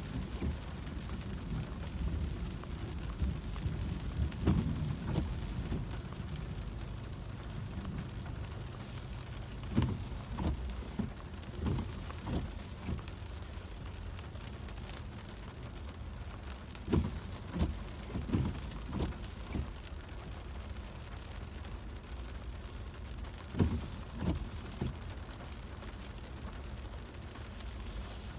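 Rain drumming on a car's roof and windshield, heard from inside the cabin over a steady low rumble of the car on the wet road, with a few irregular louder thuds.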